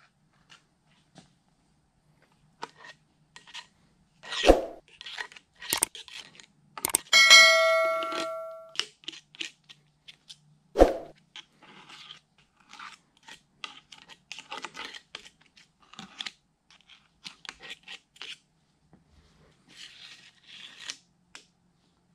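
Thick grease being scooped and smeared with a metal spatula into a cast gear housing: intermittent sticky scraping and small clicks, a few sharp knocks, and one metallic ring lasting about a second and a half, about seven seconds in.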